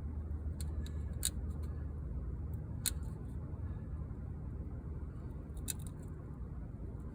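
Scattered short, sharp clicks and snips from hand work on a camper window screen, the strongest about a second in, near the middle and near the end, over a steady low hum.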